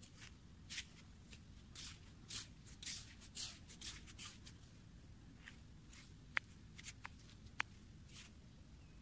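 Footsteps in flip-flops on wet, shell-strewn sand: a soft crunching step about every half second for the first four seconds, then two sharp clicks a little over a second apart near the end, over a faint steady low rumble.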